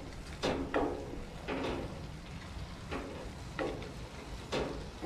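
Wooden spatula stirring and scraping ground beef and mixed vegetables around a cast iron skillet, a scrape every second or so, over a steady sizzle from the cooking pan.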